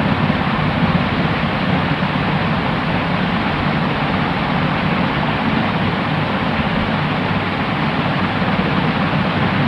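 Steady white noise: an even, unchanging hiss, fuller in the low end and dull at the top.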